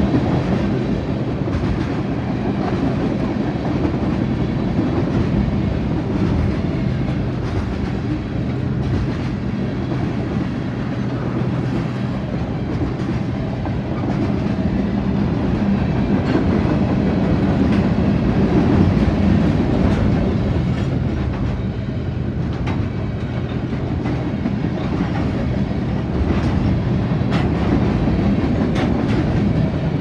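Freight cars of a manifest train rolling steadily past a grade crossing: a continuous rumble with the wheels clacking over the rail joints.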